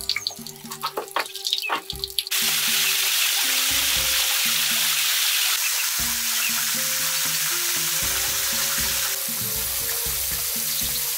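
Food sizzling in a hot pan: a steady sizzle starts about two seconds in and keeps going, over background music. A few sharp clicks and bird chirps come before it.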